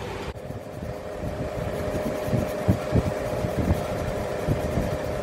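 A rusty driveshaft yoke's U-joint bore being scrubbed by hand with a Scotch-Brite abrasive pad, giving a rough scratching with irregular knocks of metal being handled, over a steady machine hum.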